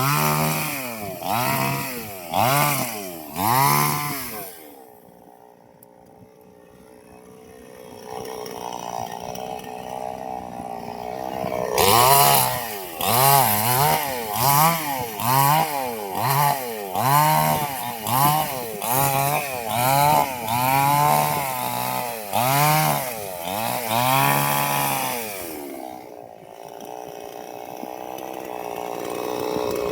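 Chainsaw engine revving up and down over and over, about once a second. It drops to a quieter, steadier run about five seconds in, then revs hard again, and settles down near the end.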